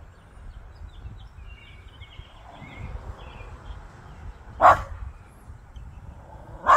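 A small dog barks sharply once about two-thirds of the way in and again at the very end: alarm barks at an unfamiliar new cable box. Faint bird chirps sound near the start.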